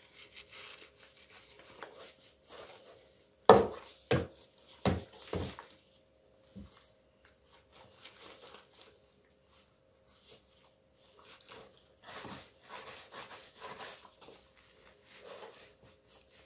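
Gloved hands rubbing a cloth over a wet cat in a plastic washing-up basin, soft scrubbing and rubbing noises with four sharp knocks a few seconds in, over a faint steady hum.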